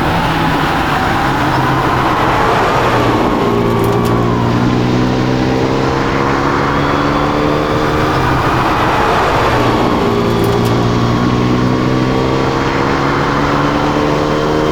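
Renault Megane RS 250's turbocharged 2.0-litre four-cylinder pulling hard, its revs climbing steadily through a gear, dropping with a shift about nine seconds in, then climbing again.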